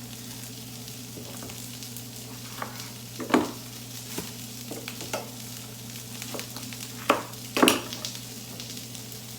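Vegetables, Brussels sprouts among them, sizzling in a hot frying pan at about 300 degrees, with a steady low hum. A few sharp knocks cut through, the loudest about three seconds in and twice near seven and a half seconds.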